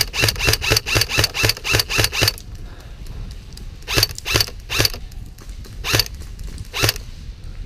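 Airsoft gun firing: a quick string of about a dozen shots in the first two seconds, then single shots fired every half second to a second.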